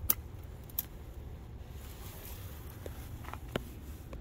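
Handling noise from a hand-held camera: a low rumble with a few sharp clicks and taps, the loudest just after the start.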